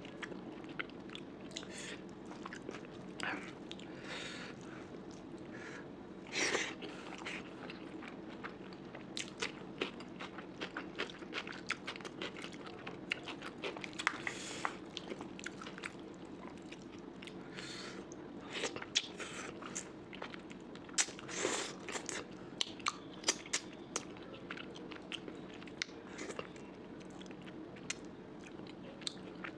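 A person chewing and biting food close to the microphone, a curry-and-rice meal, with many small wet clicks and scattered crunches and a few longer noisy bursts.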